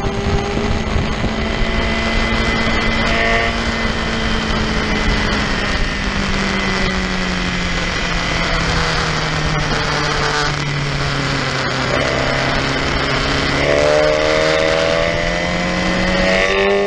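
Sport motorcycle's engine heard onboard over wind rush while lapping a racetrack. The engine note sinks slowly for most of the time as the bike carries speed through a long corner. Near the end it climbs again as the rider accelerates.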